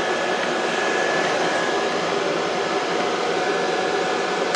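Cooling fans of rack-mounted home servers and a GPU mining rig running: a loud, steady whoosh with a thin, steady whine on top.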